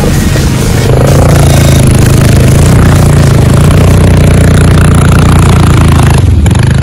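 ATV engine running loud and steady at a near-constant pitch as the machine wades through a deep mud hole.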